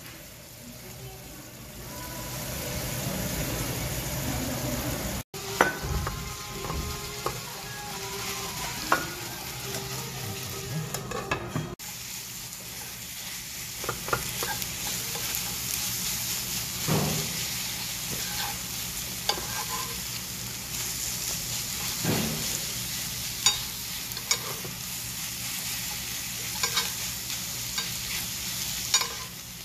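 Kkakdugi sauce sizzling and bubbling in a hot cast-iron skillet, then rice being stirred and mixed in the pan with metal spoons, the spoons scraping and clicking against the iron again and again over a steady sizzle.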